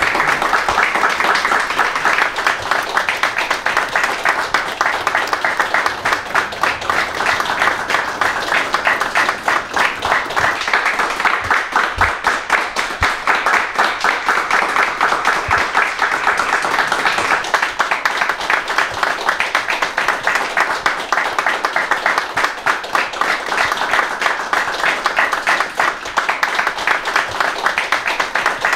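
Group of people clapping their hands together in steady, continuous applause, a dense patter of many overlapping claps with no break.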